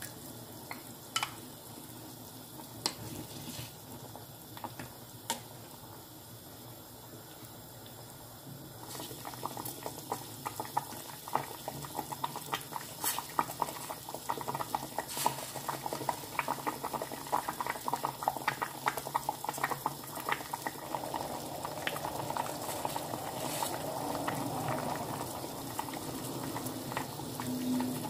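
Soft tofu stew (sundubu-jjigae) in a stainless steel pot coming to the boil, left unstirred. After a few isolated clicks early on, rapid bubbling and popping starts about nine seconds in and grows louder and denser.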